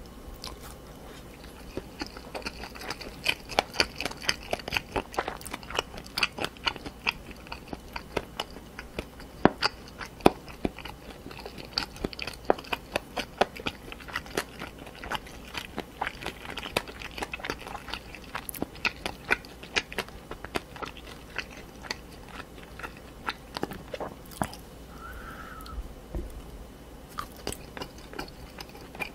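Close-miked chewing of crunchy cartilage in spicy pork cartilage and chicken feet: sharp, rapid crunches and wet mouth sounds, several a second, starting about a second in.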